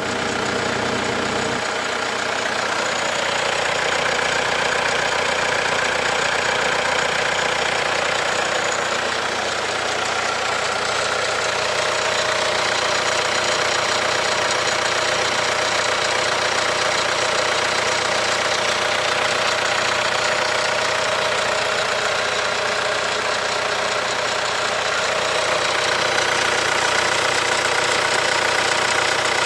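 Hyundai/Kia 2.2 CRDi D4HB four-cylinder common-rail diesel engine running steadily, carrying an extraneous noise that the owner wants identified.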